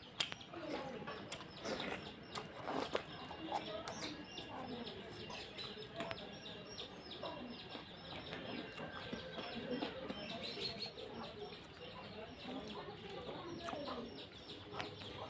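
Close-up eating sounds: rice and chicken curry being mixed by hand, with chewing and lip-smacking, a steady stream of short wet clicks.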